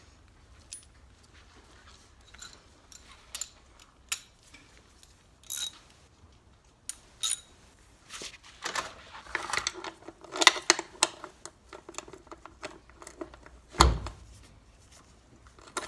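Metal hand tools clinking and clattering as they are handled, single clicks at first, a busier run of clatter in the middle, and one heavy thump near the end.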